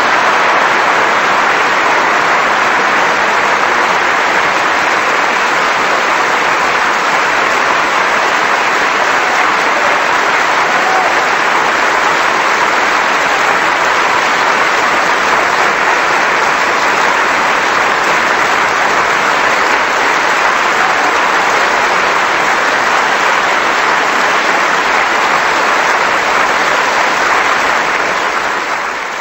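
Theatre audience applauding a ballet, a steady, dense applause that fades away near the end.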